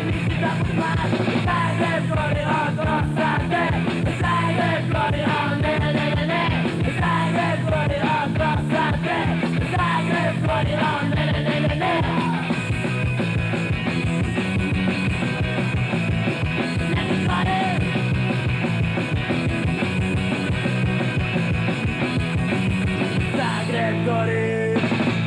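Punk rock song played by a full band with a singer. The singing stops about halfway through and the instruments carry on.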